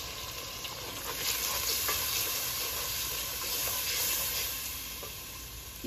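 Ground spices, onion paste and ginger-garlic paste sizzling in hot oil in an aluminium pot while being stirred with a wooden spatula. The sizzle swells in the middle and eases toward the end.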